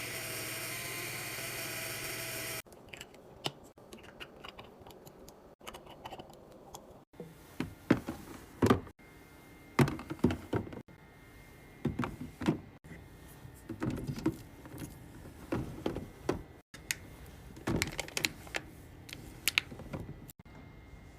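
A steady hum for the first couple of seconds, then a series of clicks, knocks and light clatter as packaged food, bottles and plastic containers are handled and set into a mini fridge.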